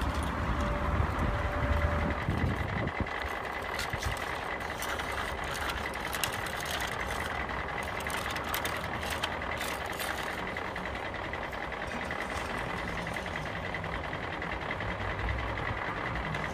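A steady engine-like drone with a faint high whine, and scattered light clicks and clatters of plastic toy construction vehicles being moved about on concrete.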